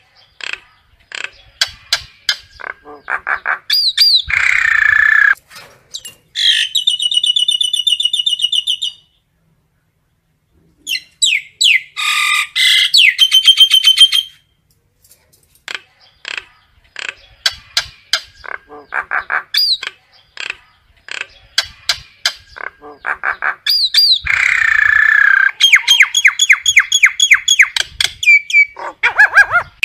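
Common myna calling: runs of sharp clicks and chattering notes, gurgling phrases and fast rattling trills, broken by short silences. The same gurgle-then-trill phrase comes twice, about twenty seconds apart. These are flock-gathering calls.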